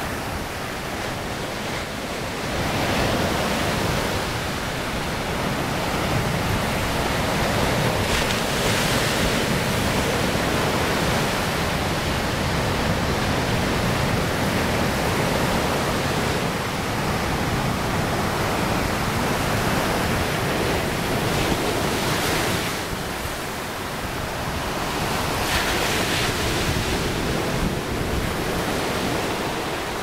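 Pacific Ocean surf breaking on a sandy beach: a steady rushing wash that swells and eases as the waves crash and run up the sand.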